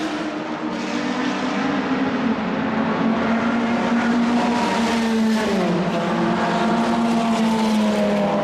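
1960s racing car engine running hard at speed, its pitch mostly steady with small rises and falls, dropping briefly about five and a half seconds in.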